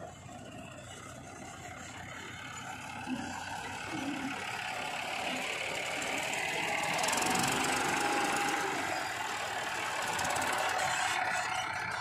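Farm tractor diesel engine running as tractors with trolleys drive along a dirt track, growing louder and loudest about seven to eight seconds in.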